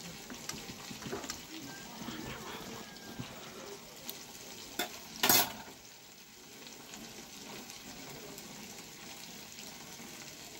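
A steel spoon scraping and clicking against a steel plate as it cuts a soft slab of dhoka into pieces, with one short, louder scrape about five seconds in.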